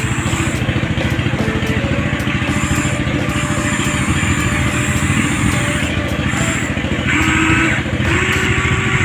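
Huina 1593 RC excavator's electric motors and gearboxes whirring with a fast, steady rattle as the arm and bucket dig into the soil, the whine shifting in pitch as the motors work.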